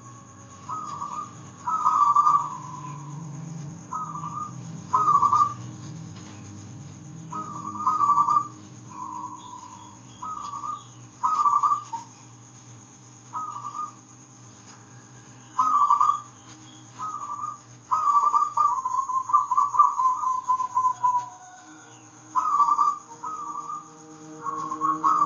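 Zebra dove (perkutut) cooing in a series of short bursts of quick staccato notes, with one longer rolling run past the middle. A soft, steady instrumental drone sits underneath.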